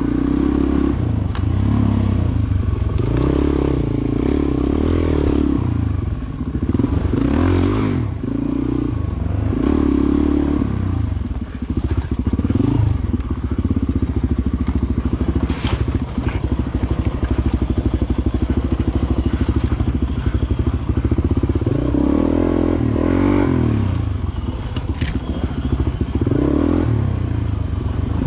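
Suzuki DR-Z400 dirt bike's single-cylinder four-stroke engine, revving up and down again and again while riding a rough dirt trail. Clatter and a few sharp knocks are heard over the engine.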